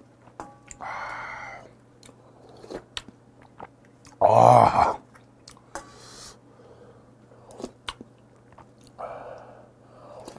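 Close-miked eating of spicy fish stew: slurps of hot broth from a spoon about a second in and near the end, chewing, and small spoon clicks. A short, loud voiced sigh comes about four seconds in.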